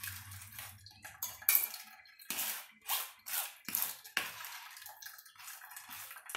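Wet squelching and splashing as a hand presses and rubs ground safflower seed pulp against the mesh of a plastic sieve, the milk draining through. Repeated short swishes, about two a second.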